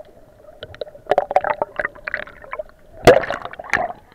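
Sea water splashing and sloshing around a waterproof action camera at the surface beside a paddling dog: quieter for about the first second, then irregular bursts of splashing, loudest about three seconds in.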